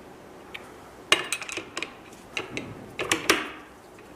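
Sharp metallic clicks and clinks of a screwdriver working the bolts that hold the Wanhao Duplicator 9's top gantry to its Z-axis pillars, a quick cluster about a second in and another around three seconds in.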